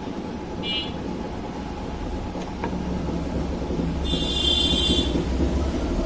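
A steady low hum that grows slightly louder, with two short high-pitched beeps: a brief one about half a second in and a longer, brighter one at about four seconds.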